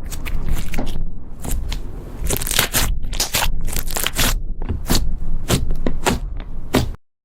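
Slime being squeezed and worked by hand: a dense run of sticky crackling and popping clicks that stops abruptly about seven seconds in.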